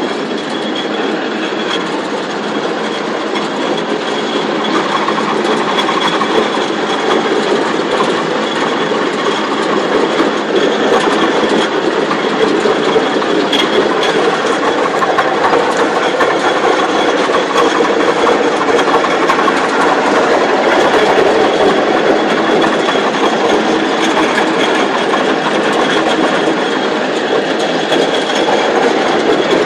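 Fortschritt E512 combine harvester running with its threshing and separating gear turning: a loud, steady, dense mechanical clatter with a thin high steady tone over it, growing slightly louder over the first several seconds.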